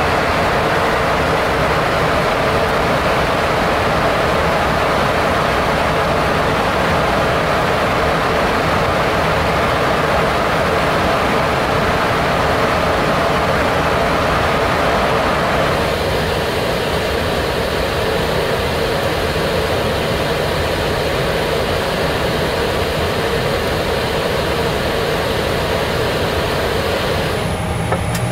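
Steady rushing air noise in the cockpit of a parked Boeing 737, the flight-deck ventilation and equipment fans running. Its tone shifts about halfway through and again just before the end.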